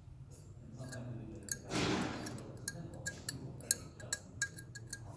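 Breaking a bronze casting out of its mold: a short scraping, crumbling rush about two seconds in, then a quick run of sharp, ringing clicks and taps as the mold is chipped and knocked off the metal.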